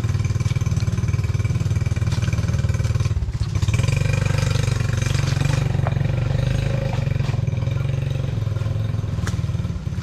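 An engine running steadily, with a brief dip about three seconds in, after which its note shifts slightly higher.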